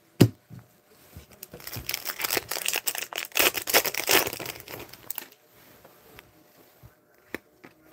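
Foil wrapper of a hockey card pack being torn open and crinkled by hand: a dense crackling lasting about three and a half seconds, starting about a second and a half in. A single sharp tap comes just before it, and a few faint ticks follow.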